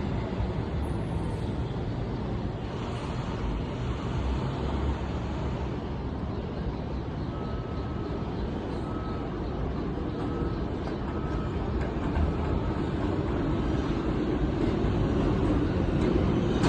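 Steady low rumble and hiss of a New York City subway station, growing louder over the last few seconds as a 4 train comes in. A faint short high beep repeats about six times in the middle.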